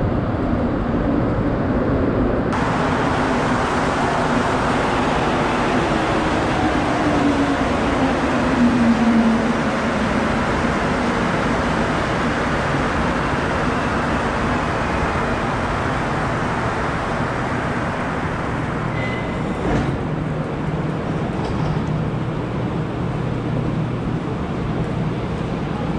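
Montreal Metro Azur rubber-tyred train pulling into the station: a loud steady rumble with a falling motor whine as it slows. A short tone and a sharp knock come about three-quarters through, then a steady low hum as the train stands.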